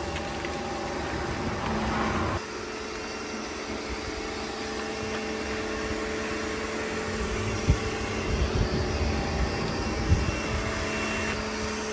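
Karcher electric pressure washer running steadily while snow foam sprays through its foam lance, with a couple of brief knocks in the second half.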